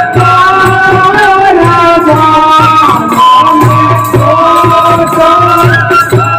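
Rajasthani Holi dhamal folk music: chang frame drums beating a steady rhythm under a loud melody line and singing.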